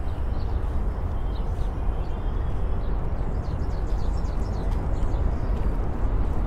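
Outdoor city waterfront ambience: a steady low rumble, with a few faint, short bird chirps scattered through it.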